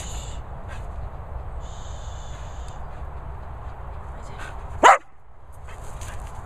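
A dog barks once, a single sharp, loud bark about five seconds in.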